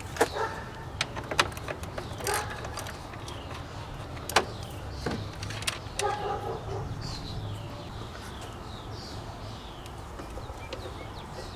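Scattered metallic clicks and knocks of a hand tool working the 10 mm bolts on the cooling fan shroud, mostly in the first half. Birds call in the background with short, repeated falling notes through the second half.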